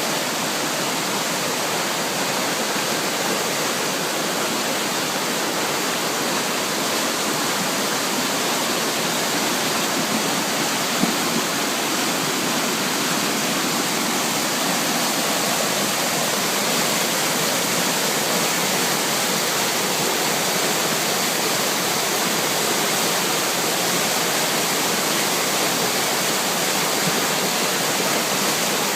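Floodwater rushing down a normally dry stream bed in flash-flood spate, a steady loud rush of water.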